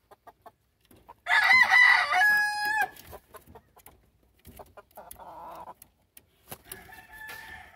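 Gamefowl rooster crowing loudly once about a second in, the crow ending on a held note, with a fainter crow near the end.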